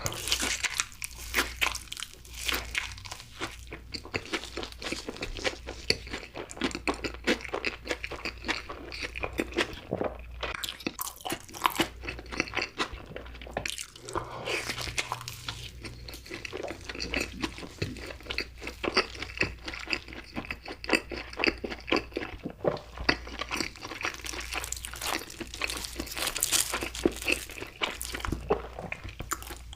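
Close-miked crunchy food being bitten and chewed: dense, irregular crunching and crackling that keeps up throughout.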